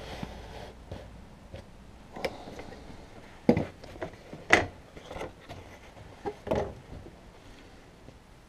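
Knocks and clatter of a mount-board cutter's aluminium rail and the stiff mount card being handled, with a few sharp knocks between about three and seven seconds in.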